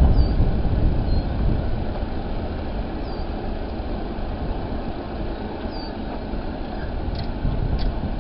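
Low, steady rumble of a CSX intermodal freight train receding just after it has cleared the crossing, easing slightly over the first couple of seconds. Faint bird chirps and a few light clicks near the end.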